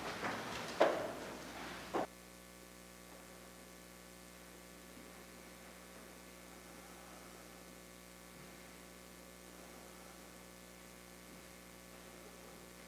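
Faint steady electrical mains hum with a buzzy stack of overtones. It is preceded by about two seconds of room noise with a couple of sharp knocks, which cut off abruptly.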